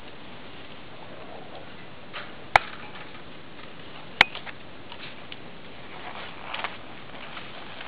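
Two sharp cracks about a second and a half apart, over faint taps and scrapes of a skier's skate skis and poles on the snow.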